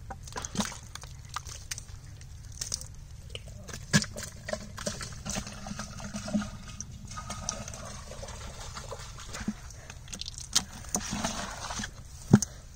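Live eels writhing in a plastic bucket of muddy water: wet slithering, squelching and sloshing, with scattered sharp knocks and taps, the loudest near the end.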